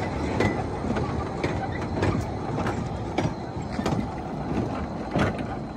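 Narrow-gauge carriages and wagons rolling slowly past close by, their wheels knocking and clicking irregularly over the rail joints over a steady rumble.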